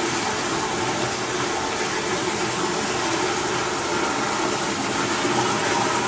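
Steady rush of a stream of water running through a concrete collector culvert.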